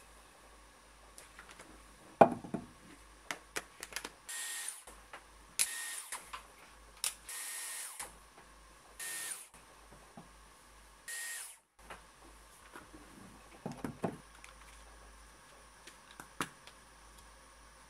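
A hot-air hair styler blowing in five short bursts of about half a second each, a rush of air with a thin high whine. Scattered handling knocks and clicks come between them, with a sharp knock early and a cluster near the end.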